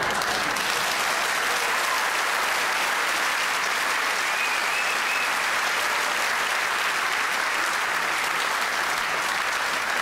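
Large seated audience applauding, a steady, even clapping.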